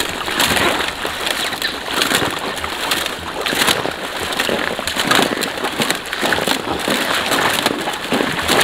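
Water splashing and sloshing as a swimmer paddles with his hand and kicks his feet, a continuous run of small splashes.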